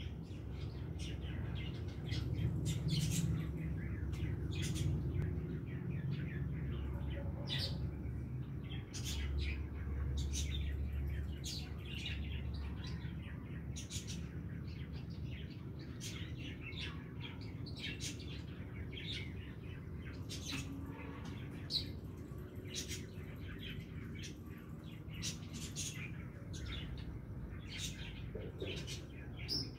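Birds chirping in many short, quick calls over a steady low rumble.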